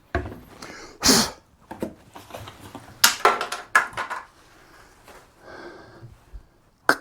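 Irregular knocks, clatter and rustling of objects being handled, with a short, louder rushing noise about a second in and a cluster of sharp clicks and knocks around the middle.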